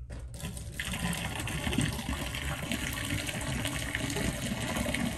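Hot water pouring in a steady stream from a kettle spout into a bathtub drain, starting just under a second in.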